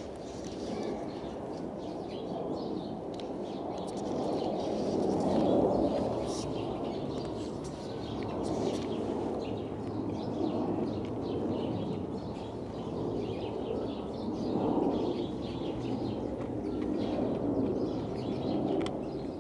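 Cats crunching dry kibble from a plastic tub, in quick scattered small crunches, over a steady low outdoor background sound that swells and fades a few times.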